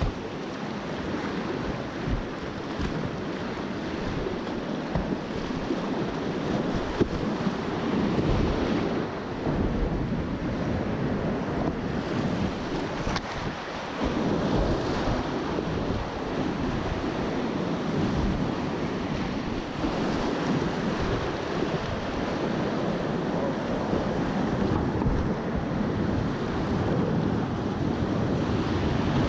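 Whitewater rapids of a class II–III river rushing close around a kayak as it runs them, with splashes from paddle strokes.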